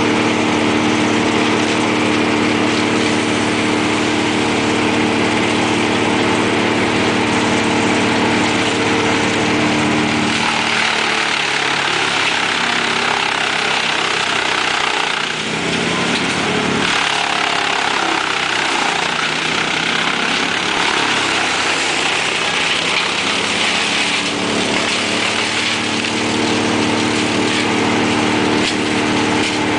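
Large wood chipper and its engine running with branches being fed in. For the first ten seconds the engine runs steadily. From about ten seconds in, its note breaks up and wavers under load, over a rushing, crunching noise of brush being chipped. Near the end it settles back to a steady run.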